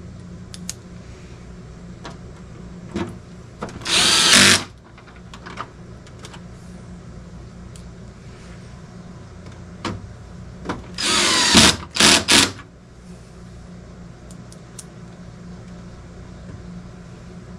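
Cordless drill/driver driving screws into the plastic cabinet of a dehumidifier. One run of just under a second about four seconds in, and another about eleven seconds in followed by two short bursts, with small clicks of handling between.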